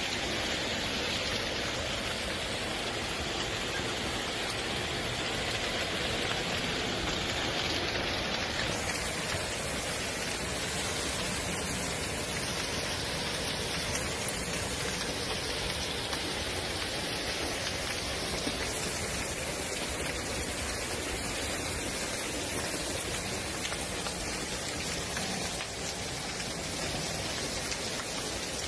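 Heavy rain and hail pelting down in a storm, a steady dense hiss, its tone shifting slightly about 8 and 18 seconds in.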